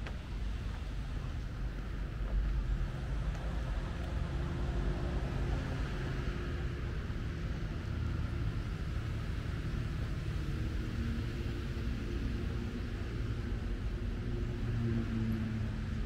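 Steady low rumble of road traffic, with a vehicle engine faintly passing now and then.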